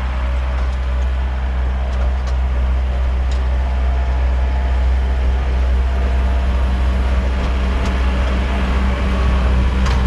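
A vehicle engine running steadily at an even speed, a low drone that holds the same pitch, with a few faint clicks over it.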